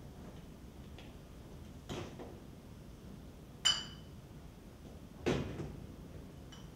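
A few handling sounds of glassware and objects being set down: a knock about two seconds in, a sharp ringing clink of glass about halfway through, a duller thump a second and a half later, and a small clink near the end.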